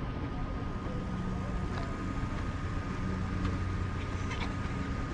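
Steady road and traffic noise: a low rumble with a faint, constant high whine running through it.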